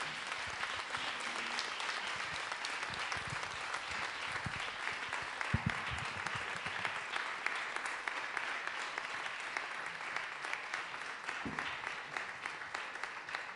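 Audience and panel applauding: many hands clapping steadily, thinning a little near the end.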